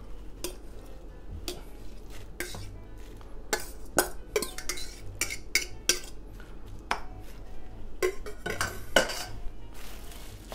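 A utensil scraping and tapping against a stainless steel mixing bowl as raw minced beef is scooped out. The sound is a series of irregular clinks and knocks.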